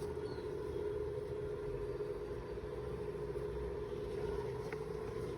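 A steady mechanical hum with a low rumble beneath it, even throughout.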